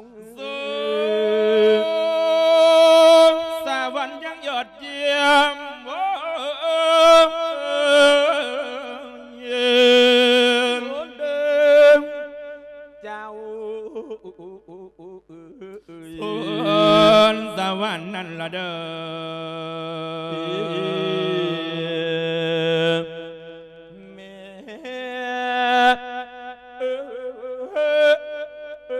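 A Thai Buddhist monk's solo voice singing a lae, the Isan-style melodic chanted sermon, here one sending off the spirit of the dead. It goes in long phrases of held, wavering notes, with short breaks about twelve seconds in and again near twenty-four seconds.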